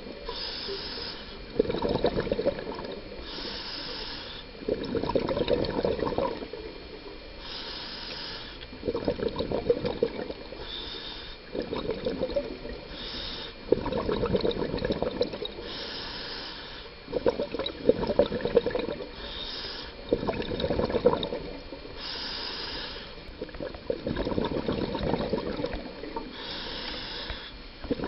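Scuba diver breathing through a regulator underwater: a short hiss on each inhale, then a longer bubbling rush of exhaled air, repeating every few seconds.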